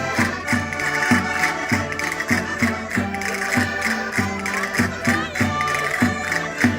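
Portuguese concertinas (button accordions) playing a lively Minho folk tune with a steady beat.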